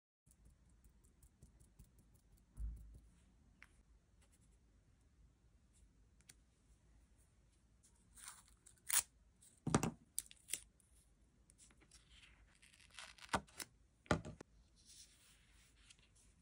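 A rubber stamp thumps once onto paper card. Then washi tape is pulled off its roll and torn off in quick sharp rips, in two clusters past halfway and again near the end, with the crackle of the tape being handled.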